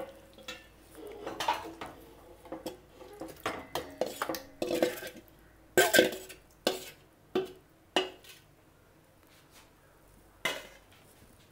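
Stainless-steel bowl and cooking pot clanking and scraping together as marinated chicken is tipped and scraped into the pot: a string of irregular metallic knocks, some ringing briefly, the loudest about six seconds in.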